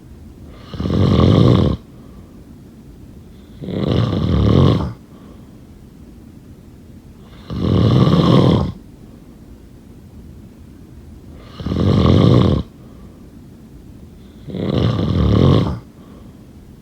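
A person snoring: five loud snores, each about a second long, coming every three to four seconds with quiet between them.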